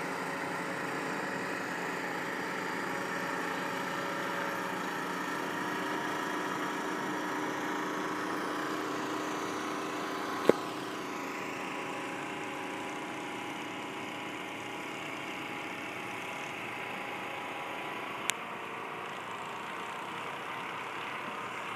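An engine running steadily at a constant pitch, with two sharp clicks, about halfway through and again near the end.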